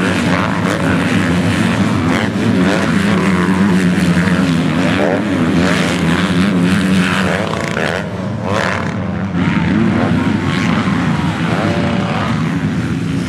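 Several MX2-class motocross bike engines running at racing speed, overlapping, their pitch rising and falling again and again as the riders open and close the throttle over the jumps.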